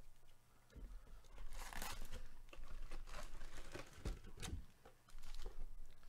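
Topps baseball card box being opened and its foil-wrapped packs pulled out: cardboard and foil packaging crinkling and tearing in short, irregular bursts.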